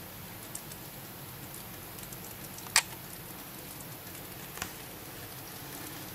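Steady hiss of rain falling during a storm, with scattered small drop ticks. One loud sharp click comes a little under three seconds in and a fainter one about two seconds later.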